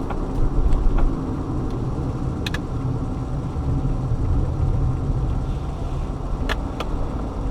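Car driving: a steady low engine and road-noise rumble, with a few sharp clicks.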